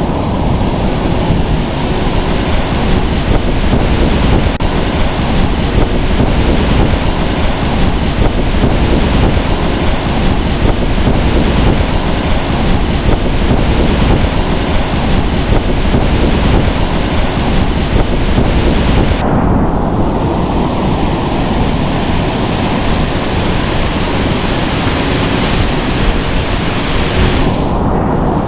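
Loud, steady roar of a mountain waterfall, the Gerber cascade, its rushing water filling the whole range of sound, with brief changes in the hiss about two-thirds of the way through and near the end.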